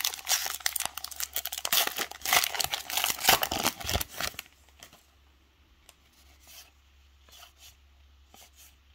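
A Topps Heritage baseball card pack wrapper being torn open and crinkled for about four and a half seconds. After that it goes nearly quiet apart from a few faint clicks.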